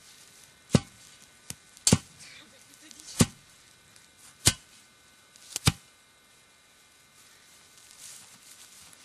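A series of sharp strikes at a slow, even pace, about one every 1.3 seconds: five loud ones, with a fainter one between the first two.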